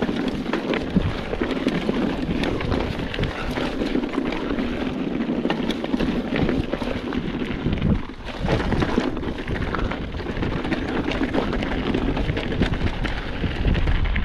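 Mountain bike descending a loose, rocky gravel trail: tyres crunching over stones and the bike rattling, with many sharp clicks and knocks, under wind buffeting the camera microphone. The noise dips briefly about eight seconds in.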